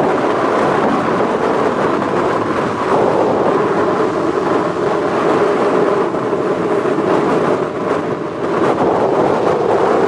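Stormy sea surf breaking and washing up a sandy beach, with strong wind buffeting the microphone; a steady, unbroken rushing noise.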